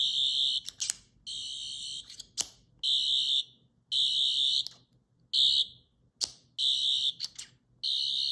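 Sonic screwdriver toy replicas sounding their electronic effect: a run of about seven short, high-pitched warbling buzzes, each under a second, switched on and off by button presses that click between them.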